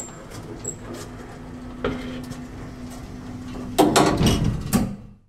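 Cartoon elevator sound effect: the doors sliding shut over a steady low hum and rattle, with a louder rumbling clatter about four seconds in.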